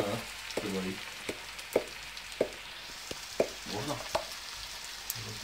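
Chopped peppers, tomatoes and sausage frying in a stainless steel pan on an electric stove: a steady sizzle with irregular sharp pops and crackles several times a second.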